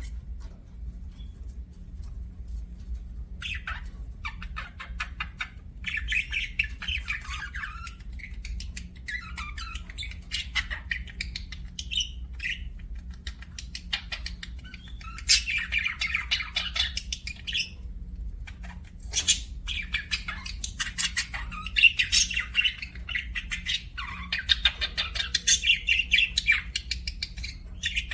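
Budgerigars chattering and squawking in bouts of rapid, scratchy warbling that start a few seconds in and grow busier toward the end. A steady low hum runs underneath.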